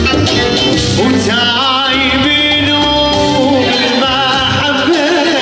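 Live Middle Eastern band music played on electronic keyboards, with a male singer coming in about a second in on a wavering, ornamented vocal line.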